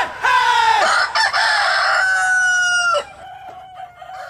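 A rooster crowing once: a loud cock-a-doodle-doo of about three seconds, ending in a long drawn-out note that cuts off.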